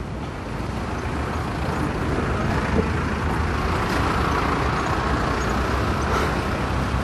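Steady road traffic noise: a low engine rumble with a hiss over it, growing a little louder over the first couple of seconds.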